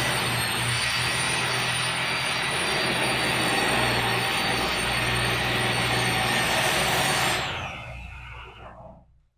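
A motor-driven machine running steadily with a high-pitched whine over a low hum. About seven seconds in it is switched off and spins down, its whine falling away to silence within about two seconds.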